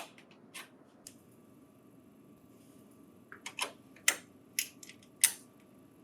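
Small sharp clicks and taps of a power-cord securing bracket being fitted on the printer: a few light clicks at the start, then a quick run of about seven sharper clicks in the second half.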